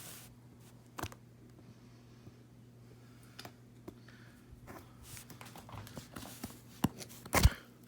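Taped cardboard shipping box being worked open by hand: scattered small clicks and scrapes of cardboard and tape, sparse at first and busier in the second half, with two sharper knocks near the end.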